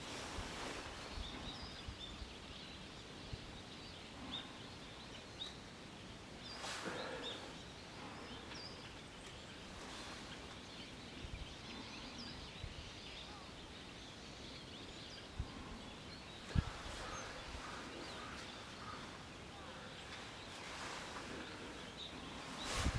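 Quiet outdoor ambience: a steady faint hiss with scattered faint, short, high bird chirps, and a few brief swells of noise.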